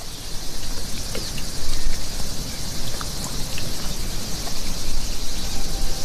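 Leopard feeding on an African lungfish, with wet crackling chewing and tearing sounds and scattered small clicks, over a steady high hiss of insects.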